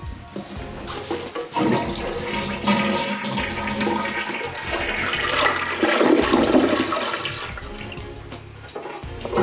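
Toilet flushing with its water supply shut off, to drain the tank down: water rushes and swirls down the bowl, loudest about six seconds in, then tailing off.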